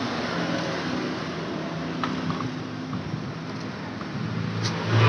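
An engine running steadily in the background, getting louder right at the end as it revs up. There are a few light metal clicks as the clutch bell is fitted over a scooter's centrifugal clutch shoes.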